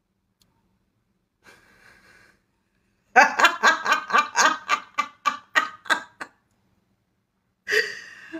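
A woman laughing hard: a faint breath about a second and a half in, then a run of about a dozen quick laughing pulses, some four a second, lasting about three seconds, and a breathy catch of breath near the end.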